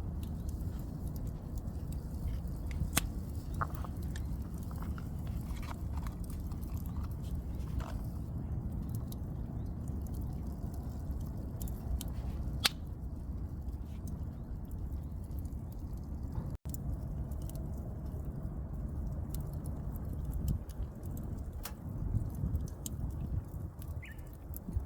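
A steady low rumble with scattered sharp clicks and crackles, and a brief dropout about two-thirds of the way through.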